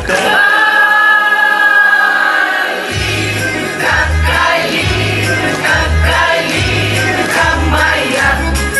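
Amateur vocal group singing together in chorus over musical accompaniment; a steady bass beat comes in about three seconds in.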